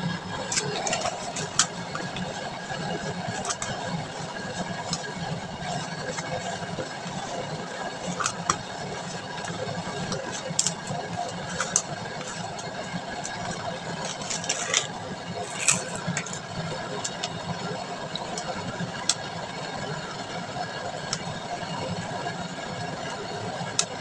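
Steady engine-like hum with scattered short clicks and taps.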